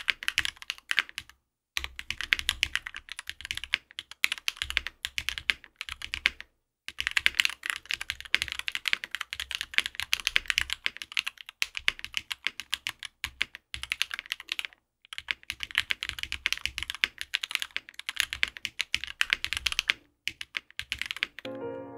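Fast typing on a Monokei x TGR Tomo mechanical keyboard with lubed and filmed Zaku switches, an aluminium plate, GMK keycaps and no foam: a dense stream of key clacks, broken by four short pauses, about a second and a half in, near seven seconds, around fifteen seconds and near twenty seconds.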